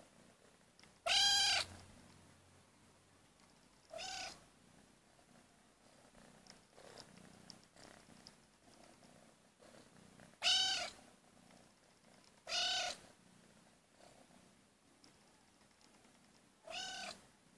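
A kitten meowing to beg for food: five short, high-pitched meows spread out over the stretch, each rising and falling in pitch. The first and fourth are the loudest.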